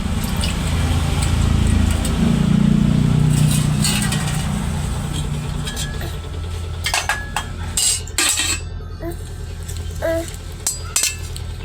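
Metal pots, ladles and utensils clinking and knocking together as a small child plays with them, the sharp clinks scattered and irregular, some with a short ring. A steady low hum runs under the first few seconds.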